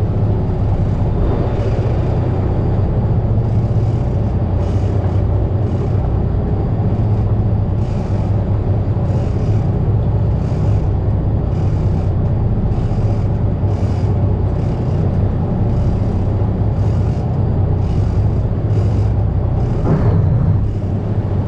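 Boat engine running steadily under way, a loud low drone, with short bursts of hiss about once a second.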